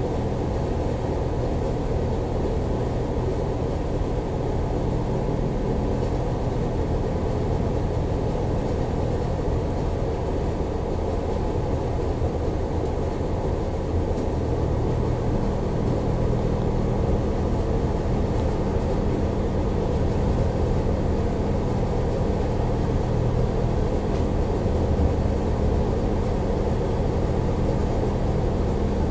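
Irish Rail 22000 class diesel multiple unit running, heard from inside the passenger carriage: a steady low drone from the train in motion. A humming tone in it drops out about six seconds in and comes back about halfway through.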